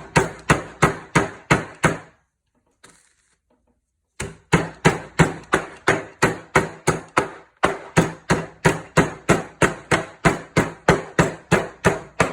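Rapid, steady pounding on a bag of cake-topping 'dirt' to crush it into crumbs, about three blows a second. The blows stop for about two seconds, then start again.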